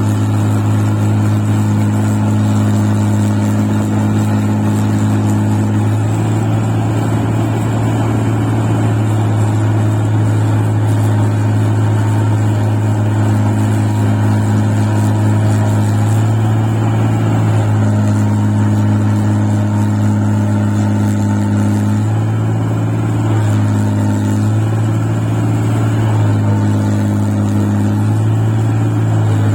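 Engine of a rice-paddy machine running steadily while working deep paddy soil, its note shifting a little a few times, most in the second half.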